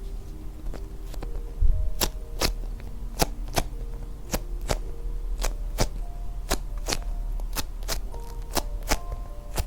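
Background music: a soft music-box style melody of held notes over a clicking beat of about two ticks a second, with a single dull thud about two seconds in.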